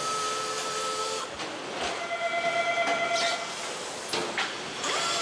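Motorcycle assembly-line machinery running: a steady hiss with several whining tones that change pitch about a second and a half in, and a few light knocks.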